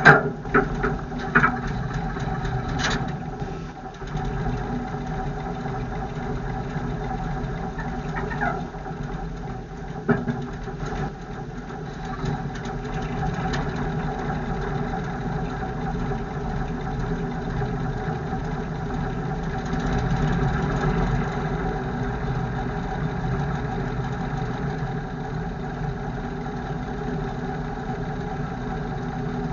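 1952 REO M35 deuce-and-a-half's gasoline six-cylinder engine idling steadily, just restarted after a cold no-start. A few sharp knocks in the first three seconds.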